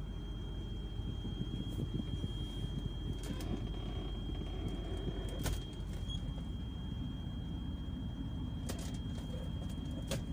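SsangYong Rexton's 2.7-litre common-rail turbodiesel idling steadily, heard from inside the cabin, with a few light clicks.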